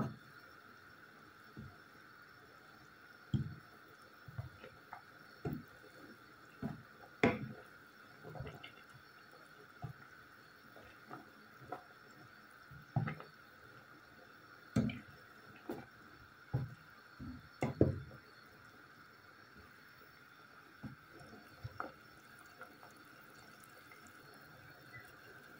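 A pot of water with apple pieces, parsley and bay leaves at a simmer, stirred with a wooden spoon: irregular liquid sloshes and bubbling pops, more frequent in the first two thirds and sparse near the end.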